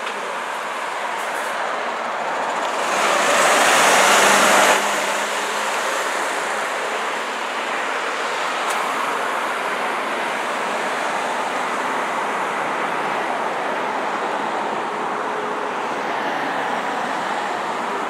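Road traffic passing close by, including a heavy truck: a steady rush of tyres and engines. A louder rush starts about three seconds in and cuts off suddenly.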